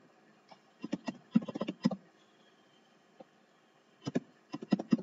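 Typing on a computer keyboard: two quick runs of keystrokes, about a second in and again near the end, with a pause and a single keystroke between.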